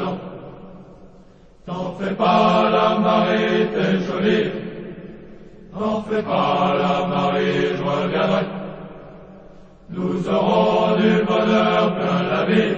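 A company of soldiers singing a military marching song in unison, men's voices. Three phrases start about two, six and ten seconds in, each fading away before the next.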